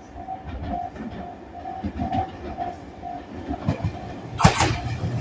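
Tobu N100 series Spacia X limited express train coming through at speed: low rumble, then its wheels clattering loudly over the rail joints from about four seconds in. A short tone repeats about twice a second beneath it.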